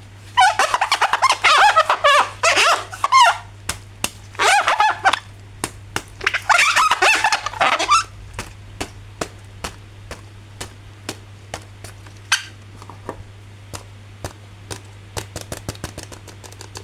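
Plastic toy packaging crinkling and squeaking as it is handled, in three loud bursts, then a long run of sharp clicks and taps.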